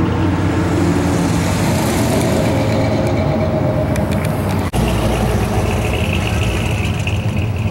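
Engine and exhaust of a white second-generation Chevrolet Camaro driving slowly past. About four and a half seconds in there is a sudden cut to the engine of a 1950s Ford F-100 pickup with dual exhausts running as it drives by, lower and deeper.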